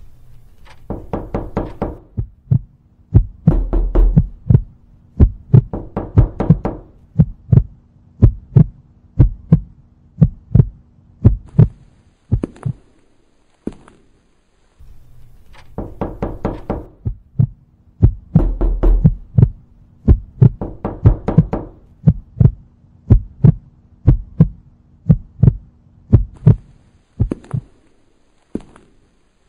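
A looped horror sound-effect track of rhythmic thumps and knocks over a low steady hum. It cuts out briefly about halfway through, then starts again and repeats the same sequence.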